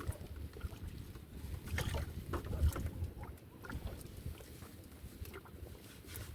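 Water sloshing against a floating fishing raft, with scattered small knocks and clicks and wind rumbling on the microphone.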